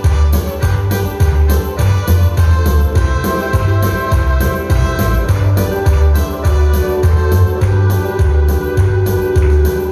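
Instrumental praise-hymn music: held organ-like keyboard chords over a steady pulsing bass beat.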